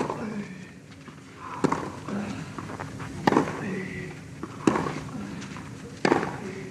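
Tennis rally: a racquet strikes the ball about every one and a half seconds, five sharp hits in all.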